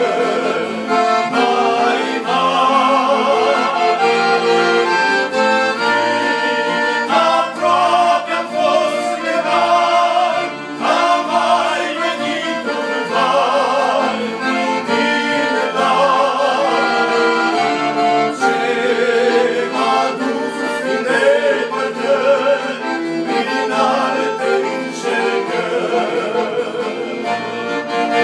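Two men singing a sacred song together, accompanied by an accordion.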